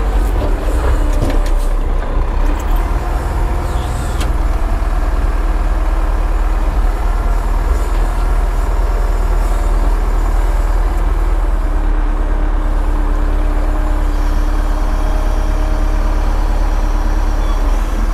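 Wheel loader's diesel engine running, heard from inside the cab, with its pitch shifting in the first couple of seconds and a few knocks early on, then settling to a steady note.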